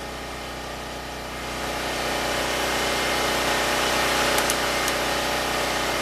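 Predator 6500 generator's single-cylinder engine running at a steady speed. It grows louder about a second and a half in.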